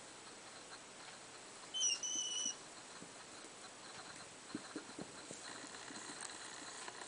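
African pygmy hedgehogs shuffling on fabric bedding, with small soft knocks and rustles, and one short, high whistling squeak about two seconds in that dips slightly and then holds.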